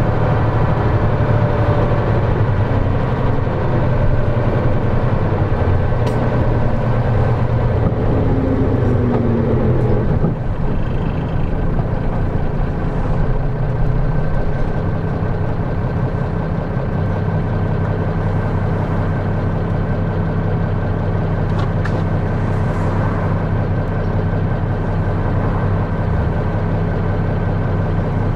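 Nissan Diesel Space Runner city bus's diesel engine heard from on board: running with the bus moving, then dropping in pitch as it slows about ten seconds in, and idling steadily after that. A few faint clicks sound now and then.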